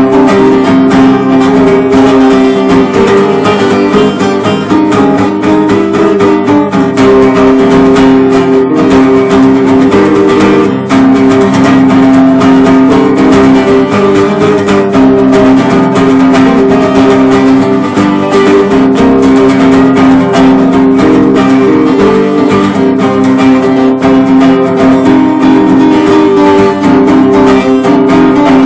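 Acoustic guitar played without pause in a Spanish style, plucked notes mixed with strumming.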